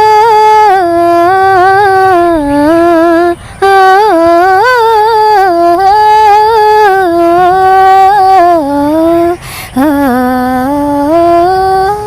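A teenage girl singing a song's melody unaccompanied, in long held notes that slide and waver between pitches, without clear words. Her voice breaks off briefly twice, as if for breath.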